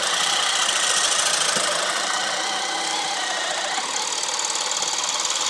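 Makita cordless brushless hammer drill in drill mode on high speed (speed 2) boring a spade bit into a thick pine timber. The motor runs hard and steadily under load as the bit chews through the wood.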